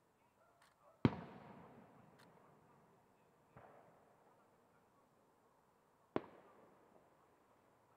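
Aerial firework shells bursting. A sharp bang about a second in is followed by a long rolling echo, then comes a fainter bang a couple of seconds later and another sharp bang about six seconds in.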